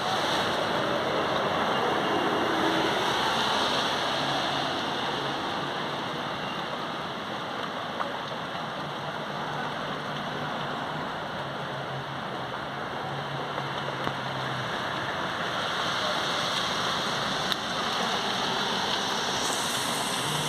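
Heavy rain falling steadily onto a wet street and pavement: a continuous rushing hiss of rain and splashing water.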